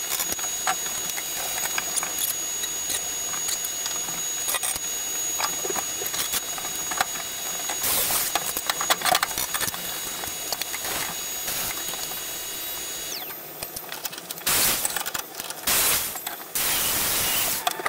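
Angle grinder running against stainless steel pipe, a steady high whine over a gritty crackle. About thirteen seconds in it is switched off and its whine falls away as it spins down, followed by a few short bursts of harsh grinding.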